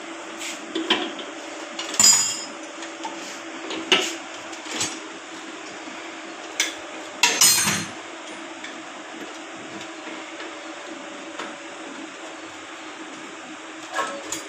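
Irregular metallic knocks and clinks as metal parts and tools are handled against a motorcycle's steel fuel tank, loudest in a quick cluster about halfway through, over a steady low hum.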